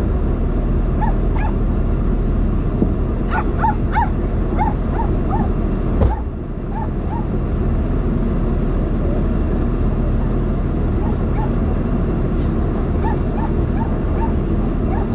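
A vehicle engine idling steadily, with two runs of short high chirps and one sharp knock about six seconds in.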